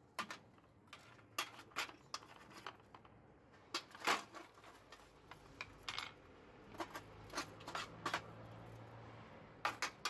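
Steel tongs and a fork scraping and tapping on a steel baking tray while aluminium slag is handled, giving a string of irregular sharp clicks and scrapes. The loudest knock comes about four seconds in, and a last pair of clicks comes near the end as the tongs are laid on the tray.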